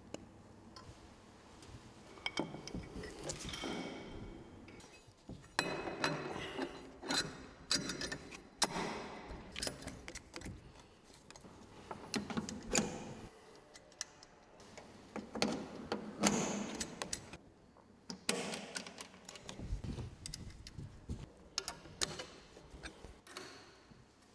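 Metal plugs and cable connectors clicking and rattling as they are plugged into a DC power-supply box and the apparatus is handled, with irregular knocks and rustles throughout.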